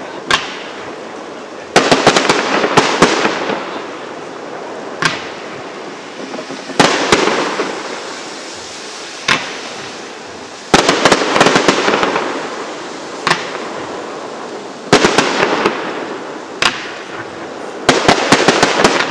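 Aerial firework shells bursting: sharp bangs, often in quick crackling clusters, each trailing off in a fading crackle, going off every one to two seconds.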